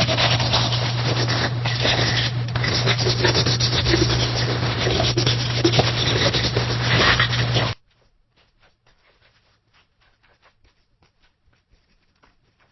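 Pencil writing on paper: loud, dense scratching over a steady low hum, which cuts off abruptly about two thirds of the way through. It is followed by much fainter, lighter pencil scratches.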